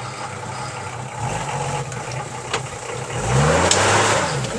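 Off-road 4x4 rig's engine running under load on a steep dirt climb, revved hard about three seconds in and then easing back. The tyres churn the loose dirt during the rev.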